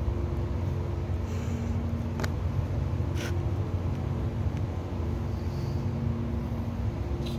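A machine running steadily: a low drone with a faint steady hum over it. A few brief light rustles come through in the first half.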